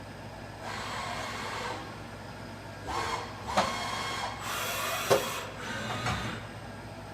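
Milltronics VM-16 CNC vertical mill running with a steady hum, its spindle called at 1500 RPM. Several short bursts of hissing rattle ride over the hum, with two sharp clicks, the louder about five seconds in.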